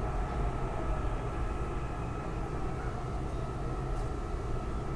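Elevated rapid-transit train car heard from inside as it runs into a station: a steady low rumble with a constant high whine, and a second whine that slides down in pitch and fades in the first second or so as the train slows.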